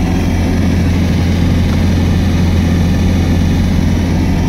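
Swapped-in VW TDI diesel engine idling steadily, heard from inside the cab.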